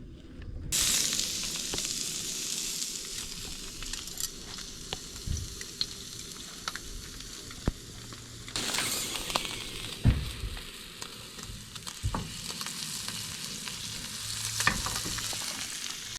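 Whole trout frying in oil in a pan over medium-low heat: a steady sizzle with scattered pops, swelling about a second in and again at about eight and a half seconds in.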